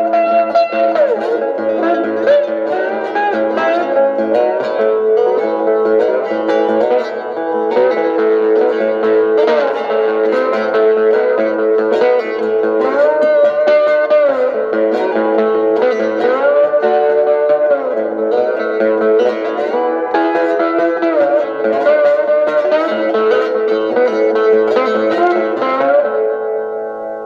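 Solo guitar instrumental in a country-blues and surf style: picked notes and chords, with glides sliding from one pitch to the next. Near the end the playing stops and the last notes ring out and fade.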